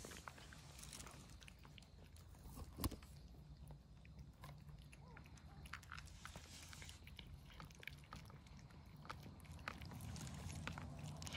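Cats chewing dry kibble: faint, scattered crunching clicks. A single sharper knock comes about three seconds in.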